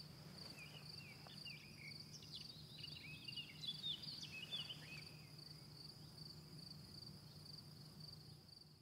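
Faint cricket song: a steady, high, evenly pulsed chirping. A few short, quick chirps a little lower in pitch join in for the first few seconds.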